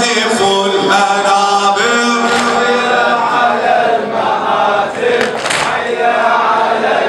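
A male reciter chanting an Arabic Muharram elegy over a microphone and PA, in long held, wavering notes, with several voices chanting along as a group.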